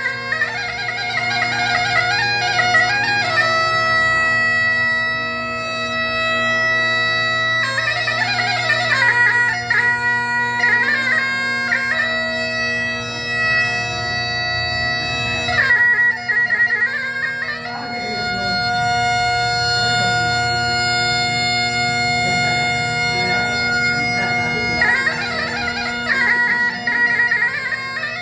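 Masakbeen, the Kumaoni bagpipe, playing a folk tune over a steady drone: long held melody notes alternate with quick ornamented runs.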